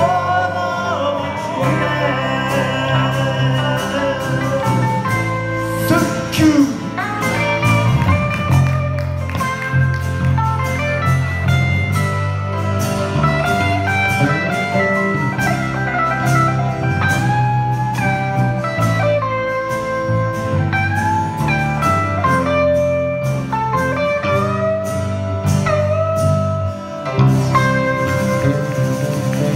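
A live band playing a song on acoustic and electric guitars, bass guitar and grand piano, with some singing.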